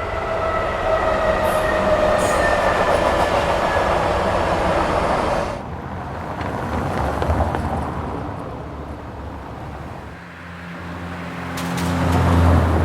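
Train running on rails with a whine that slowly falls in pitch, which cuts off suddenly about five seconds in. A quieter rumble follows, then a low engine hum swells to its loudest near the end.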